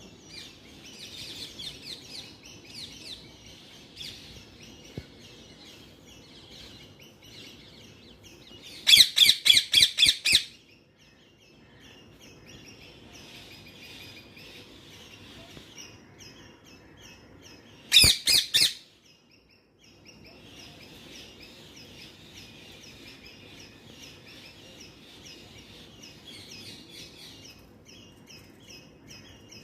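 Parrot calling in two loud bursts of rapid, repeated squawks, a longer run of about eight calls some nine seconds in and a shorter run of about four later, over the steady chirping of other birds.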